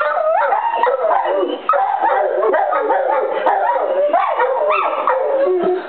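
A golden retriever and a Rottweiler howling together, their wavering howls rising and falling in pitch and overlapping, set off by the noon whistle; the howling breaks off just before the end.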